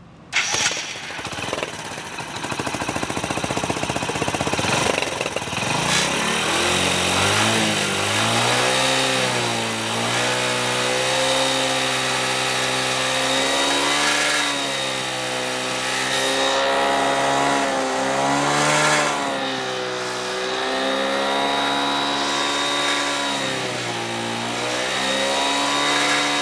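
Hero Splendor motorcycle's single-cylinder four-stroke engine catching just after the electric start, idling with a rapid beat for several seconds, then revved up and down again and again. Its exhaust is blowing up a balloon fixed over the tailpipe.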